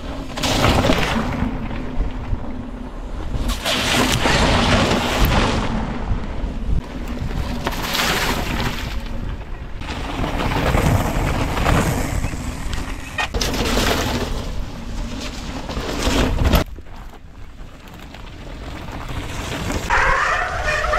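Wind gusting over the camera's microphone, a rough rumbling rush that swells and fades every few seconds and drops away sharply about three-quarters of the way through.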